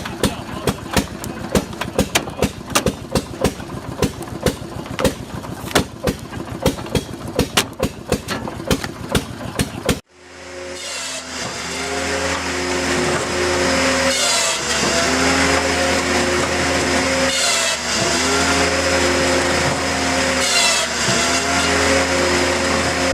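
Firewood machinery: first a rapid, irregular clatter of sharp knocks, several a second. Then, after an abrupt cut, an engine-driven machine runs steadily, its pitch dipping briefly about every three seconds, as a motor does under load.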